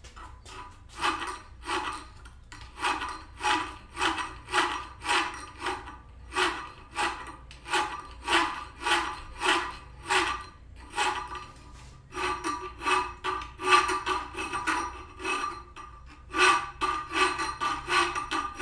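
Hand file scraping back and forth across the edge of a scrap-metal blade in a vise, about two strokes a second with a few short pauses, the metal ringing faintly under the strokes. The file is taking a burr off the edge that will be the finger hold.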